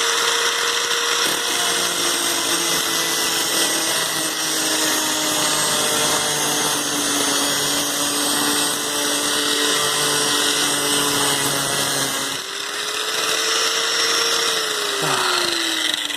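Electric angle grinder cutting into a steel bolt, the motor's pitch slowly sagging under load over a steady grinding hiss. About twelve seconds in the pitch dips and rises again. Near the end the grinder is switched off and winds down.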